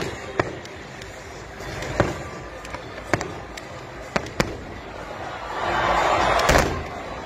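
Fireworks display: shells bursting with sharp bangs every second or so. Near the end the noise swells into a louder, denser stretch with one loud bang.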